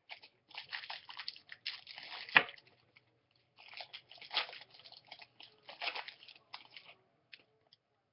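Crinkling and crackling of a foil trading-card pack wrapper being torn open and the cards handled, in two bursts, with one sharp snap about two and a half seconds in.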